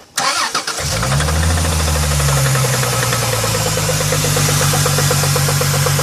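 2000 Chrysler 300M's 3.5-litre V6 cranked by the starter, catching within a second and running fast for a moment before settling into idle with a rapid, even ticking knock. The owner takes the knock for something internal, possibly rod knock.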